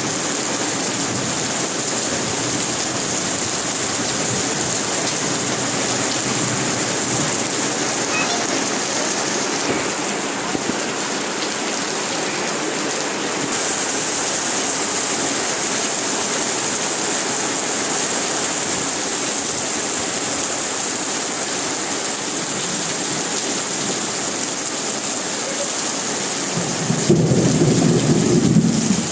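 Steady rain falling, with a short low rumble of thunder near the end.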